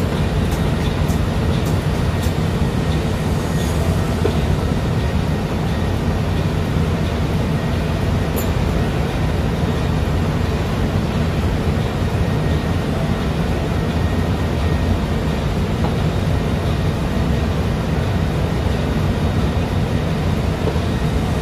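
Steady, loud machinery drone of running engine-room machinery, a constant low hum under a broad rushing noise that never changes in level.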